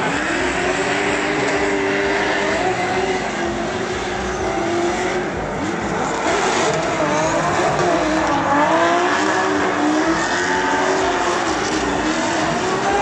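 Drift car's engine revving up and down as the car slides sideways with its rear tyres spinning and smoking, over a steady hiss of tyre noise.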